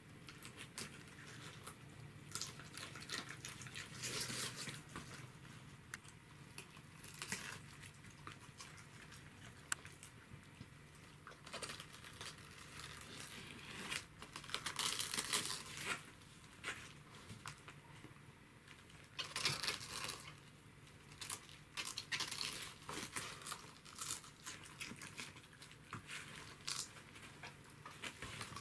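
A Pembroke Welsh corgi and another dog biting, tearing and crunching the leaves of a raw cabbage: crisp crunching and chewing in irregular bursts, loudest about halfway through.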